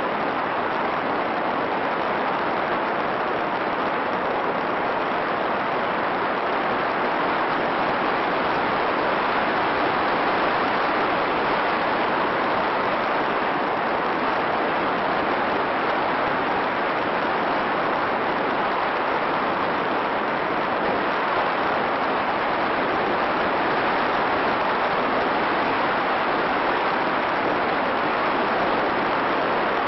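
A steady, even hiss with no pitch, rhythm or separate impacts in it.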